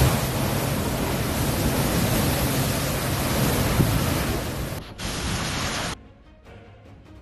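Loud, steady rushing of hurricane wind, breaking off about five seconds in, then a short second stretch of the same noise that cuts off suddenly; after that only faint background music.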